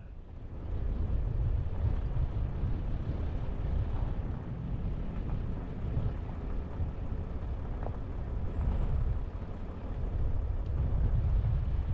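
Vehicle driving slowly on a camp road: a steady low rumble of engine and road noise.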